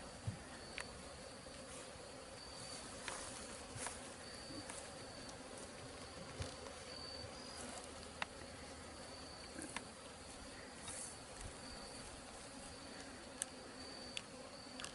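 Honeybees buzzing around an opened hive: a faint, steady hum, with scattered light clicks and knocks.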